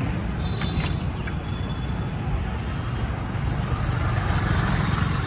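Steady street traffic and road noise heard from a moving cycle rickshaw, mostly a heavy low rumble. A brief high-pitched tone sounds about half a second in.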